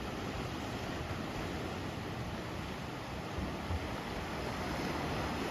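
Ocean surf, a steady rush of waves, with wind buffeting the microphone in a couple of brief low bumps about three and a half seconds in.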